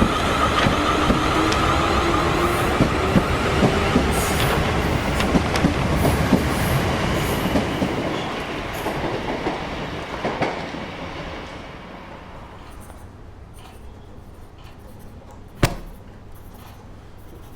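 A train clattering along the rails with a squealing tone from the wheels, fading away over several seconds past the middle. Then a low, steady background remains, broken by one sharp knock near the end.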